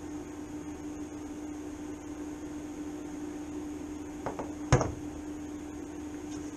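Welding helmet set down on a wooden workbench: two light clicks about four seconds in, then one sharp knock. A steady hum runs underneath throughout.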